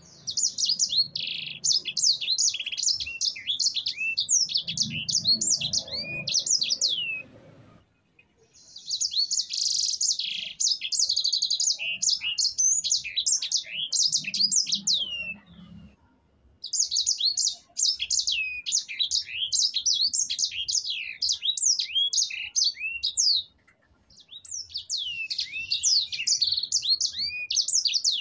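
Sanger finch singing a long, fast rolling song of high twittering notes and trills, in four long phrases with brief pauses between them.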